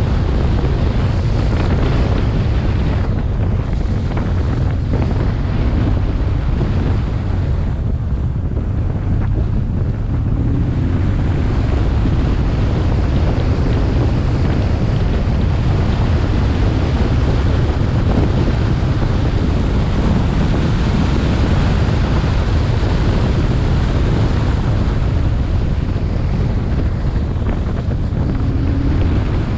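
Wind blasting across a helmet-mounted action camera's microphone while riding a motorcycle at road speed: a loud, steady low roar.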